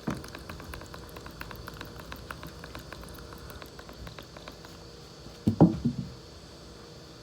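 Light wet clicks and squishes from the slime ingredients being handled. About five and a half seconds in there is a brief, much louder bump.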